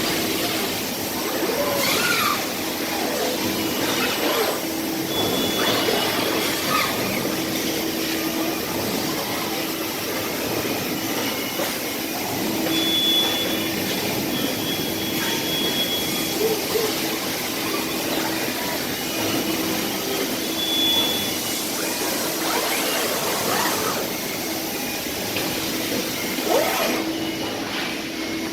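Steady whirring noise of factory machinery, with a low hum that comes and goes, short high tones, and a few brief rising whines.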